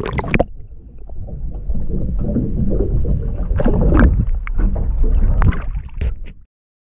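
Lake water splashing as an action camera goes under beside the boat, then muffled underwater rushing and knocking against the submerged camera, cutting off abruptly near the end.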